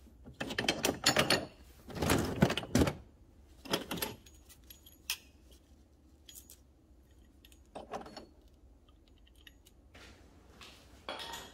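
Metal car parts, wheel hubs, bearing housings and brackets, clinking and clattering against each other as hands rummage through a cardboard box of them, in a few short bursts, with a few single knocks later on.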